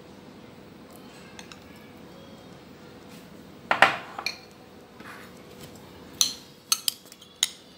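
A metal spoon knocking and clinking against ceramic dishes: a quick cluster of clinks a little before halfway, then a few separate clinks near the end.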